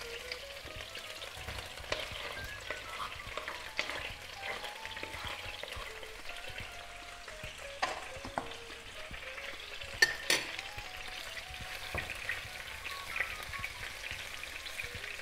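Chicken pieces with garlic, ginger and onion sizzling in hot oil in a nonstick frying pan. A wooden spatula stirring them gives occasional sharp knocks, the loudest about ten seconds in.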